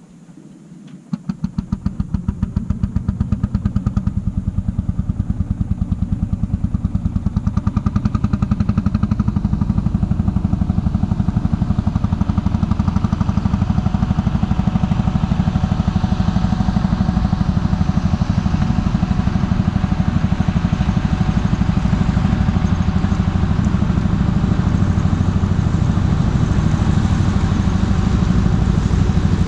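Lanz Bulldog D6516's single-cylinder two-stroke hot-bulb engine running with a rapid, even beat while mulching pasture. It sets in suddenly about a second in, grows louder over the next several seconds, then holds steady.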